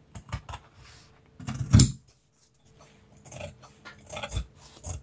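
Large fabric shears cutting through pinned pattern paper and four layers of folded fabric: a series of irregular snips and crunches, the loudest about two seconds in.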